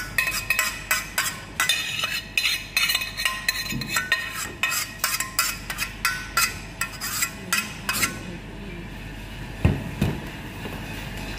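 A spoon clinking and scraping against a metal sieve as sauce is pressed through it, in quick repeated strokes of about three a second, then two louder knocks near the end.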